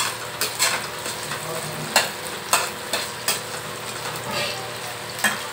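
Sliced onions frying in hot oil in a pan: a steady sizzle with several sharp crackles spaced through it.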